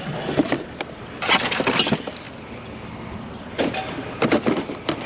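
Hard plastic and metal clattering and cracking as a discarded fan is handled and pulled apart, in three bursts of sharp knocks, the loudest about a second and a half in.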